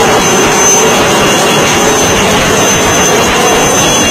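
HAL Cheetah helicopter hovering close overhead: loud, steady turbine whine and rotor noise, with the rotor downwash rushing over the microphone.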